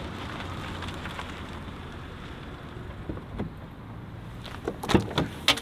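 Steady, low outdoor traffic noise in an urban car park, fading slightly, with a few sharp knocks near the end.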